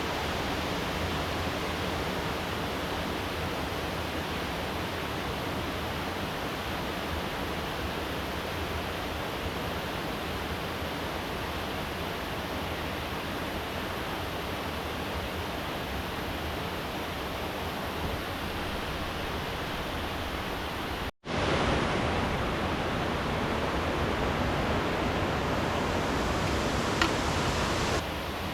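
Steady rushing of flowing river water, an even noise with no pitch. It cuts out for an instant about three-quarters of the way through and comes back slightly louder, and there is a single sharp click near the end.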